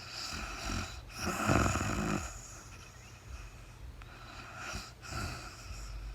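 A sleeping woman snoring: a breath in, then a loud snore about a second and a half in, and a softer snoring breath near the end.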